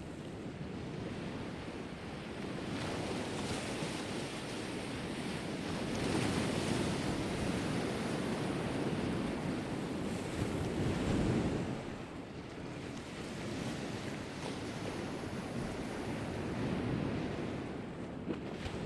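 Sea waves surging and breaking on the shore, with wind blowing. The surf swells up in waves, the biggest rolling from about six to eleven seconds in, then falls back before a smaller swell near the end.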